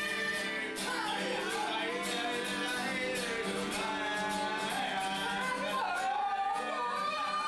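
Music: a voice singing a melody over guitar.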